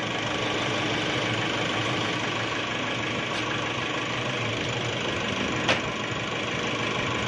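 Nissan Navara engine idling steadily, restarted on a new battery, with the alternator charging normally. A single sharp click sounds a little past halfway.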